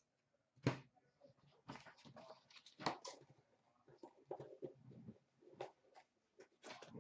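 Faint handling sounds of trading cards and packaging: scattered light clicks and rustling, with two sharper taps about two-thirds of a second and three seconds in.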